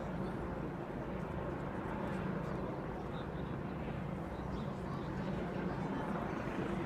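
Steady running of a heavy machine's engine on a demolition job, such as an excavator, with a low hum under a wash of noise.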